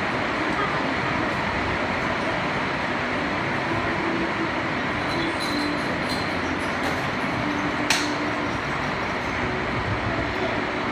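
Heavy rain falling in a steady downpour, an even hiss and patter, with one sharp drip or tap about eight seconds in.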